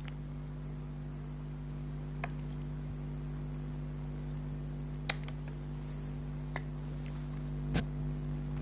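A steady low hum with a few brief sharp clicks and ticks scattered through, the loudest about five seconds in, and a short soft hiss just after it.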